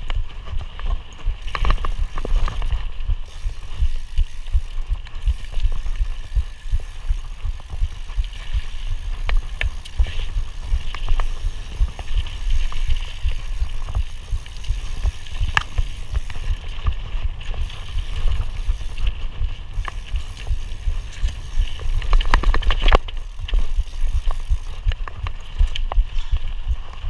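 Mountain bike ridden over a dirt trail: a steady low rumble with scattered clicks and rattles from the bike over bumps, and a burst of heavier rattling a few seconds before the end.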